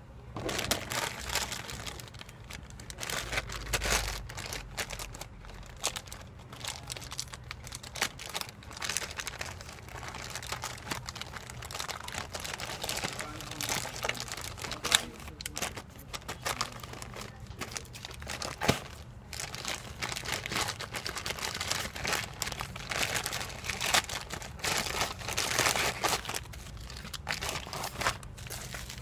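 A plastic courier pouch being torn open and handled, with irregular crinkling and crackling of the plastic and bubble wrap as the parcel is unpacked.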